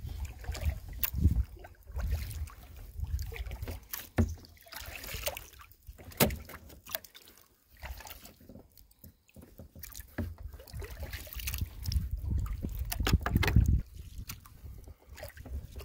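Kayak paddle strokes on calm water, with drips and small splashes and water lapping at a Delta 18 sea kayak's hull, over an uneven low rumble of wind on the microphone.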